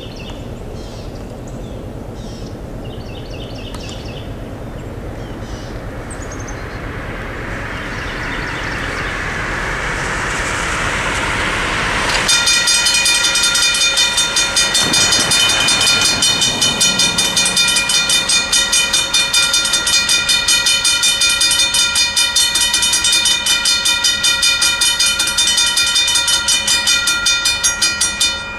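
Road noise of a vehicle approaching on the wet road builds up; then, about twelve seconds in, the crossing's US&S mechanical bell starts ringing in fast, even strokes and stops suddenly near the end as the gate arms come down.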